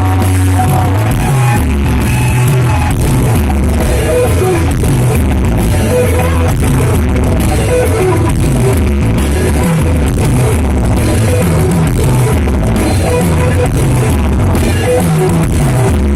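A rock band playing live, heard through a loud concert sound system: electric guitars over a pulsing bass line and steady drums, in an instrumental passage with little or no singing.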